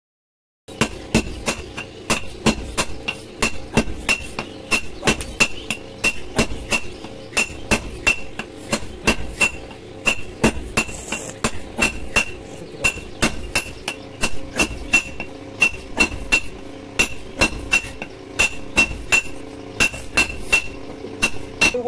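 Hand hammer forging a red-hot steel bar on a piece of railway rail used as an anvil: steady, evenly spaced blows, about two or three a second, each with a bright metallic ring. The hammering starts a little under a second in.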